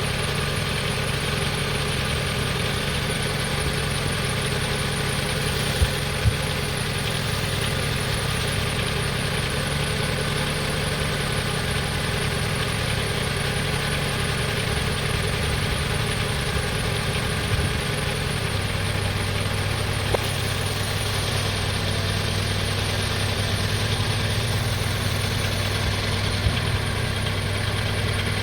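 2002 Honda CR-V's 2.4-litre four-cylinder engine idling steadily; its low hum steps down in pitch about two-thirds of the way through as the idle settles lower. A few faint clicks sound over it.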